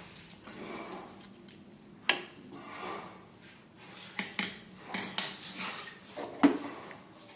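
Metal clinking and knocking while lead sinkers are being made: about four separate sharp knocks, with a brief high steady tone just before the last one.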